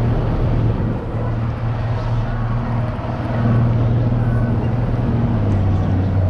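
Fishing boat's engine running steadily with a low hum; its note drops a little about five seconds in as it is eased back.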